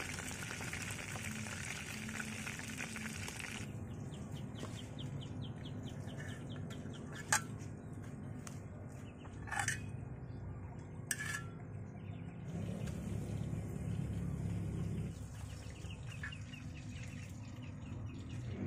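Metal tongs clinking against a metal pot and a metal serving tray while a boiled duck is lifted out and set down, with three sharp clicks in the middle. A steady hiss under a low rumble cuts off about four seconds in.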